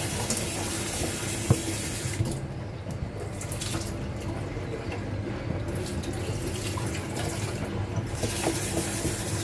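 Kitchen tap running into a stainless steel sink as dried shiitake mushrooms are washed under it. The water's rush is brighter at the start and again near the end, over a steady low hum, with one sharp knock about one and a half seconds in.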